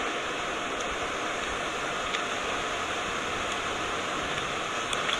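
Steady static hiss on an open broadcast phone line with no voice coming through: the link to the reporter has not connected.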